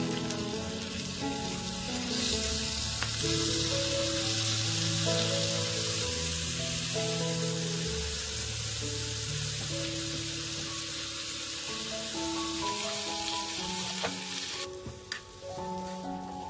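Pork belly slices frying in a nonstick pan, a steady sizzle as the fat renders out. The sizzling cuts off sharply near the end.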